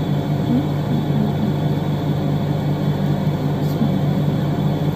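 A steady low mechanical hum runs on without change.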